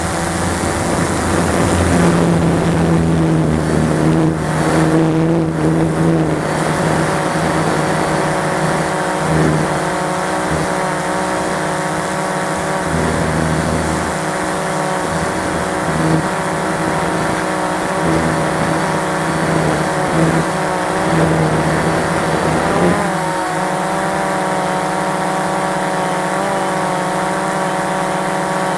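Cheerson CX-20 quadcopter's electric motors and propellers whining steadily, heard close from the drone's own camera. The pitch shifts a few times as the throttle changes, most clearly about 23 seconds in.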